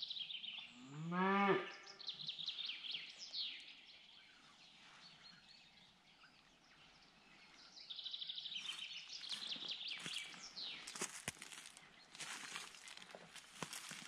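A Highland cow gives one short low moo about a second in that rises and falls in pitch, the loudest sound here. Around it, songbirds sing high trilled phrases several times.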